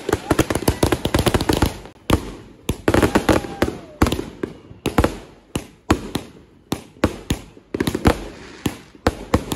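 Aerial fireworks launching and bursting: a rapid crackling string of pops for the first couple of seconds, then single sharp bangs about every half-second.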